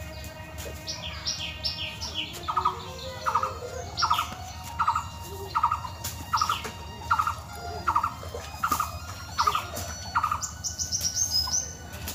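Birds calling: one repeats a short call about every three-quarters of a second, starting about two and a half seconds in, while higher chirps from other birds come near the start and near the end.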